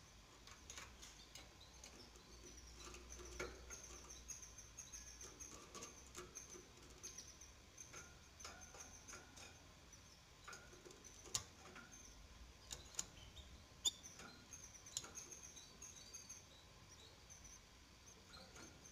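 Faint, high-pitched peeping of six-day-old canary nestlings: many short squeaks, with a few sharper clicks.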